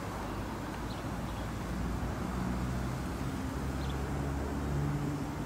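A car engine running, a low rumble with a steady hum that swells about two seconds in and eases off near the end.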